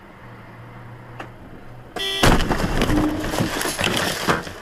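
A vehicle's engine drones steadily, then about two seconds in a short horn blast is cut off by a loud crash, with clattering impacts for about two seconds as the dashcam vehicle collides.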